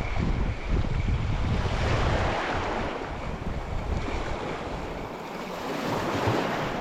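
Wind buffeting the microphone in gusts over the steady wash of sea waves. The gusting eases somewhat partway through.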